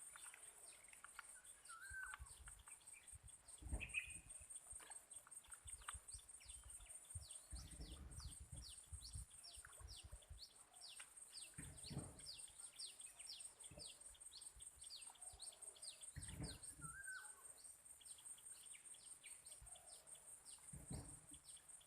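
Faint outdoor ambience: birds calling, one repeating short falling chirps about twice a second for most of the stretch, over a steady high-pitched pulsing trill, with a few low thumps.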